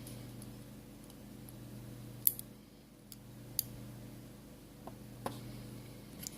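A few faint, scattered small clicks of precision tools on the small parts of an iPhone 5s display assembly, over a low steady hum.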